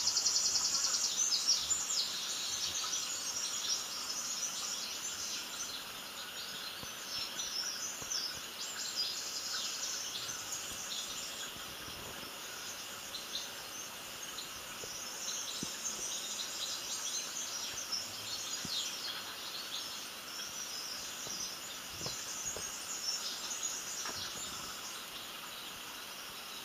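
A dense chorus of small birds chirping, many short high calls overlapping without pause, a little louder in the first couple of seconds.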